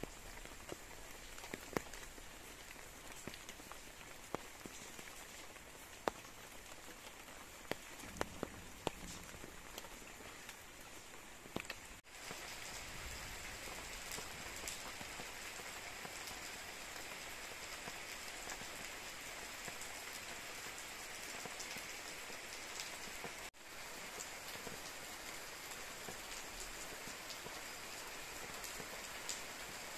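Steady rain falling, an even hiss, with sharp drops tapping close by during the first dozen seconds.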